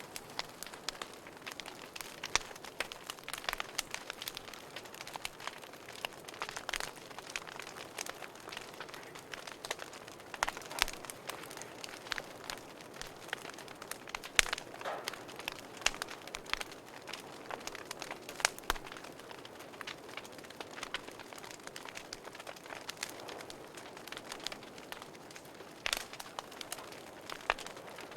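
Fire burning in a fireplace, crackling with irregular sharp pops and snaps over a soft steady hiss, a few pops louder than the rest.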